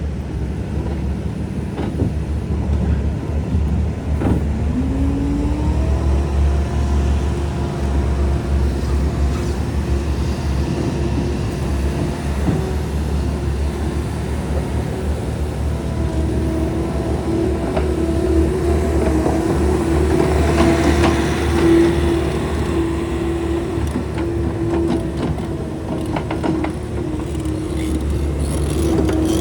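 2020 Bobcat S76 skid steer loader's diesel engine running steadily. About four seconds in, a whine rises in pitch and then holds steady, with occasional clicks and knocks.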